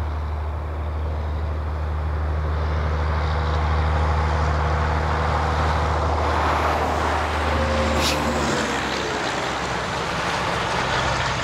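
Highway traffic with a heavy truck: a steady low engine hum and a rush of passing vehicles that swells toward the middle, with a short hiss about eight seconds in.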